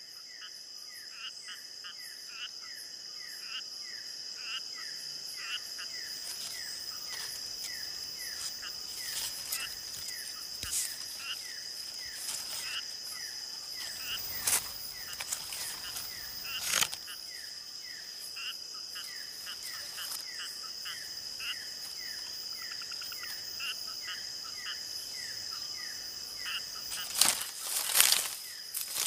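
Night-time forest insect chorus: a steady high-pitched drone with short falling chirps repeating about twice a second. A few brief rustles or snaps cut through it, the loudest cluster near the end.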